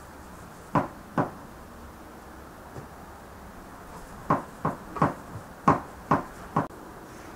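Kitchen knife chopping on a plastic cutting board: two sharp knocks about a second in, then seven more at uneven spacing from about four seconds in.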